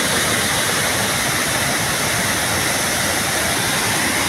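Muddy floodwater pouring over the broken edge of a washed-out road and churning over rocks below: a steady, unbroken rush of water.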